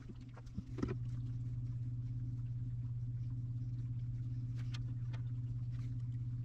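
A steady low electrical hum, like a motor running nearby, starting about a second in, with a few light clicks and taps of brass pipe fittings being handled over it.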